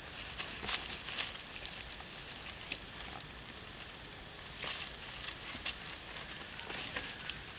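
Dry fallen leaves crackling and rustling in short scattered clicks as young macaques shift about and feed, over a steady outdoor hiss with a thin constant high whine.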